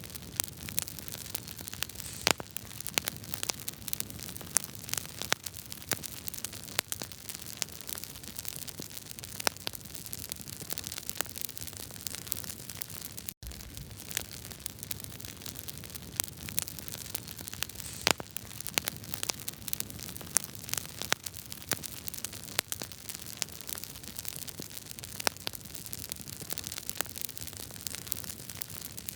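Wood fire crackling in a fireplace: irregular sharp pops and snaps over a steady low hiss, with a split-second gap about halfway through.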